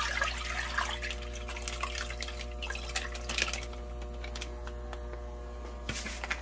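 Udon broth pouring from a plastic takeout bag into a stainless steel pot, splashing hardest in the first second, then thinning to a trickle as the bag is squeezed out. A few crinkles of the plastic bag come near the end, over a steady faint hum.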